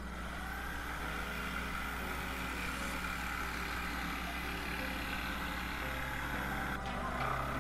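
Corded jigsaw cutting a curve through plywood: a steady motor whine with the blade rasping through the wood. It cuts off briefly near the end and starts again.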